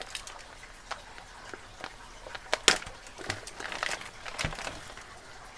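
Clear plastic bag crinkling and rustling as it is handled open, with scattered light clicks and ticks, the sharpest a little over two and a half seconds in.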